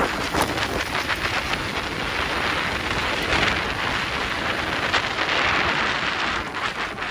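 Mountain bike rolling fast over a dirt trail: tyres crunching over loose dirt and rock, with a steady rush of noise and many small clicks and rattles.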